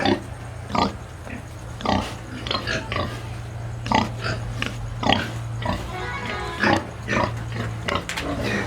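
Pigs in a pen grunting in short, irregular bursts, with one brief higher squeal about six seconds in, over a steady low hum.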